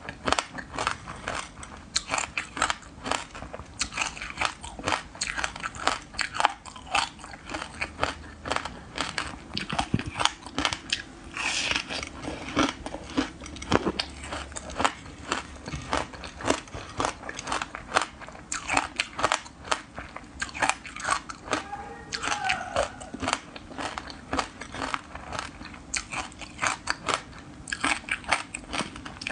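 Frozen passion fruit pulp coated in buckwheat grains being bitten and chewed close to the microphone: a dense run of crisp crunches and crackles. Between bites the loose grains rattle as the frozen chunk is pressed into the dish of buckwheat.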